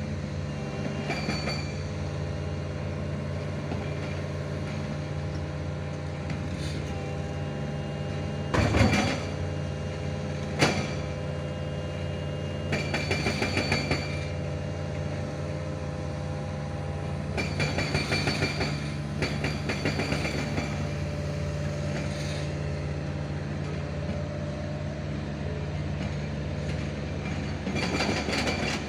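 Mini excavator's diesel engine running steadily while it climbs onto a truck bed, with several bursts of metallic clanking and squealing as it moves, and a sharp knock about ten seconds in.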